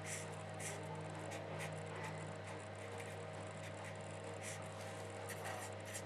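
Felt-tip marker scratching faintly on paper in short strokes, drawing a line and writing a short label, over a steady low hum.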